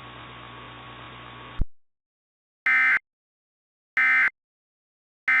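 Steady static hiss with mains hum, cut off by a click about a second and a half in. After a moment of silence come Emergency Alert System end-of-message (EOM) SAME data bursts: short buzzy digital chirps about a second apart, twice, with a third starting near the end.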